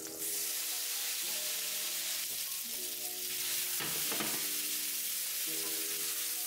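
Wet spaghetti sizzling in hot guanciale fat in a frying pan, with a steady hiss that starts just after the pasta lands, while it is stirred around the pan. Soft background music chords play under it.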